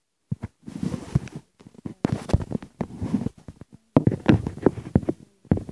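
Handling noise: a camera's microphone rubbing and bumping against clothing, giving irregular bursts of rustling with knocks and clicks.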